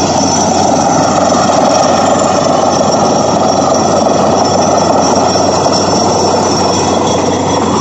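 Truck-mounted borewell drilling rig and its air compressor running at work: a loud, steady engine noise with a rush of air over it.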